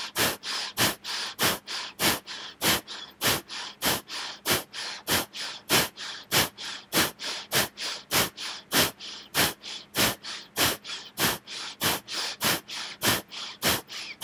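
Bhastrika (bellows breath): a person breathing in and out forcefully, both the inhale and the exhale audible, as short sharp rushes of air in a steady rapid rhythm of about three breaths a second.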